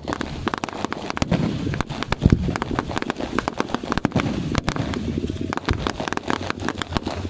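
Fireworks crackling: a dense, continuous stream of sharp pops, many per second, with a louder crack a little over two seconds in.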